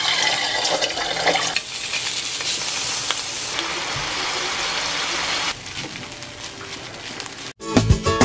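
Hot oil sizzling in a frying pan, first as an egg is cracked in and then around frying longganisa sausages. The sizzle shifts a few times and is quieter after about five and a half seconds. Just before the end it cuts off and music begins.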